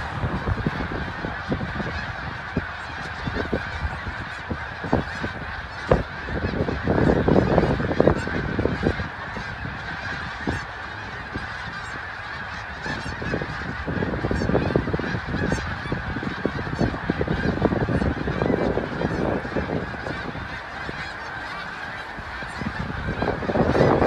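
A huge flock of snow geese calling all at once, a dense, unbroken din of many overlapping goose calls, with wind buffeting the microphone now and then.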